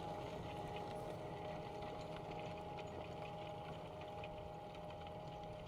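Fendt 936 Vario tractor running steadily at a distance while ploughing, a low engine hum with a steady whine over it, slowly fading.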